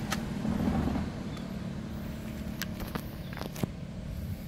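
Low, steady rumble of road traffic with a few faint clicks.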